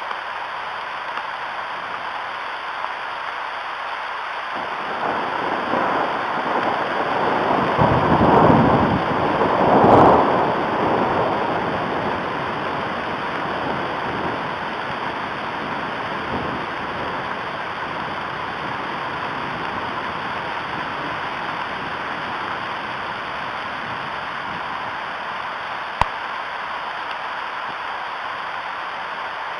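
Steady hiss of rain with a rolling rumble of thunder that builds a few seconds in, peaks twice and fades away before the halfway point. A single sharp tick comes near the end.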